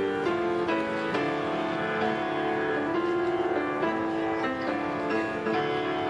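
Instrumental background music: a melody of held notes changing about every half second.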